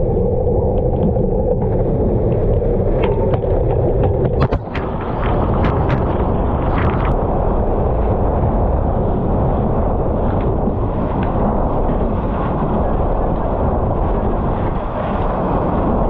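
Strong wind buffeting the action camera's microphone together with the rush of water along a sailboat's hull in heavy weather, a loud steady roar. A few sharp hits come around five seconds in.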